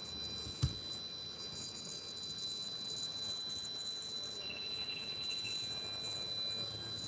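Faint background noise with a steady high-pitched whine and a soft chirring in the top register, broken once by a single low thump about two-thirds of a second in.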